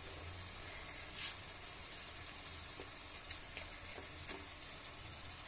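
Faint, steady sizzle of a besan (gram-flour) crepe cooking in oil on a hot nonstick pan as it is folded, with a few soft clicks.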